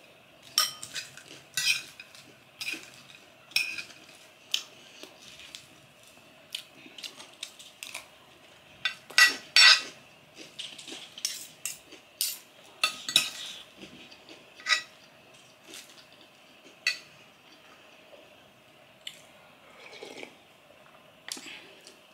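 Metal spoon and fork clinking and scraping against a ceramic plate while eating. The clinks come irregularly, a few seconds apart, and are sharpest about nine and ten seconds in.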